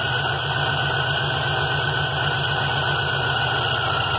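Supercharged, carbureted engine of a Chevy one-ton truck idling steadily with an even low pulse, while its idle mixture screws are being set for the highest vacuum.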